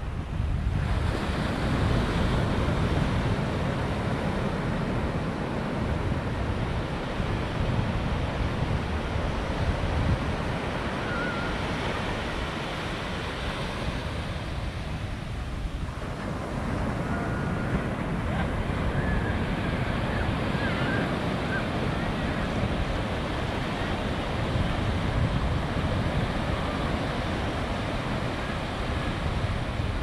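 Fairly large ocean surf breaking and washing up a sandy beach in a continuous rush. It eases briefly about halfway through, then builds again.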